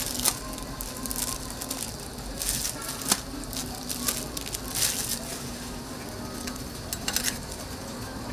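Food sizzling on a hot flat griddle, with a few sharp clicks and scrapes of metal utensils against it over a steady low hum.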